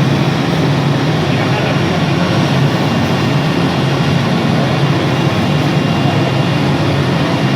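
CNC router running with a steady machine noise and a faint high whine held at one pitch.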